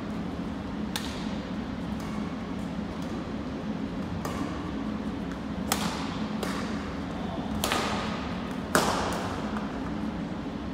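Badminton rackets striking a shuttlecock in a rally: about five sharp cracks a second or two apart, each ringing on in the big gym's echo, the loudest near the end. A steady low hum runs underneath.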